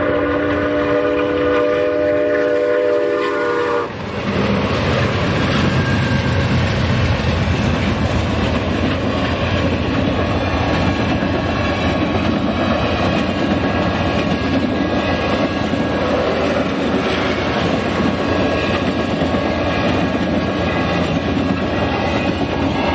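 Santa Fe 3751, a 4-8-4 steam locomotive, blows its chime whistle, several tones at once, for about four seconds, and the whistle stops sharply. Then the locomotive and its passenger cars run through the crossing at speed: a loud, steady rush of train noise with wheels clacking over the rails, and a crossing bell ringing faintly underneath.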